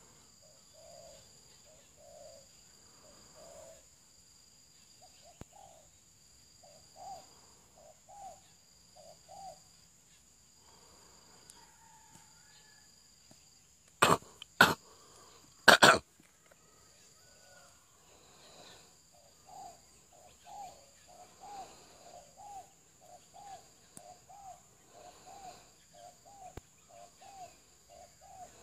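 A dove cooing in runs of short repeated notes, slower in the first half and about two a second in the second half, over a steady high-pitched insect drone. Three loud knocks cut in about halfway through.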